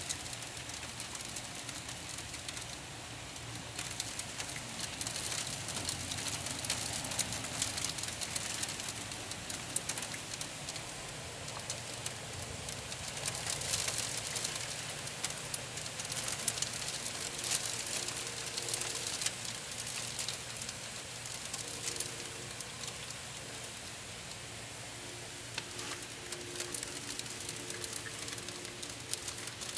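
Hail falling with rain: a steady patter dense with sharp clicks of hailstones striking. A faint steady hum comes in about halfway through.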